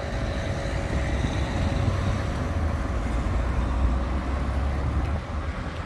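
Road traffic going by: cars and a motor scooter passing, a steady rumble.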